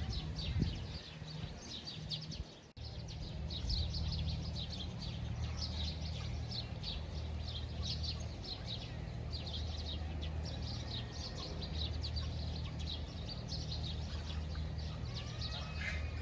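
Many small birds chirping continuously in quick short notes over a steady low hum. The sound drops out briefly about two and a half seconds in.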